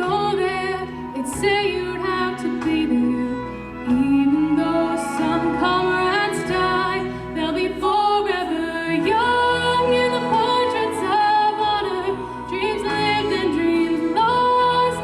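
A slow song: one voice sings long, held notes with vibrato over a steady instrumental accompaniment.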